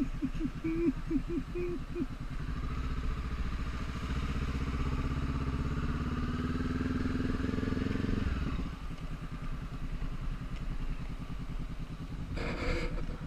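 Honda CB500X's parallel-twin engine pulling away and accelerating, its pitch rising steadily for several seconds, then easing off the throttle about eight seconds in and running quieter. Short repeated tones sound in the first two seconds, and a brief sharp sound comes near the end.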